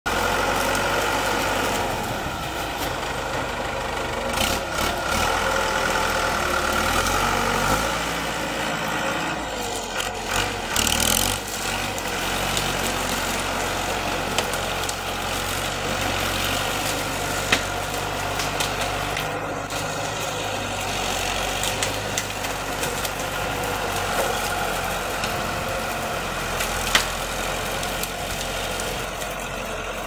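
Engine of an off-road, four-wheel-drive bucket truck running steadily, with a couple of sharp clicks.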